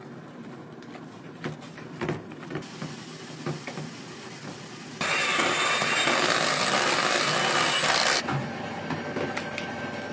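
A silicone spatula scraping and knocking against a stainless steel mixing bowl as it works through butter and melted chocolate, then an electric hand mixer starts about halfway through, whirring steadily in the buttercream for about three seconds before cutting off suddenly.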